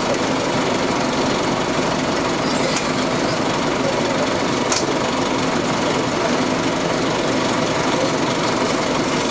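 Nova RTS transit bus's Detroit Diesel Series 50 diesel engine running with a steady drone and hum, heard from on board the bus.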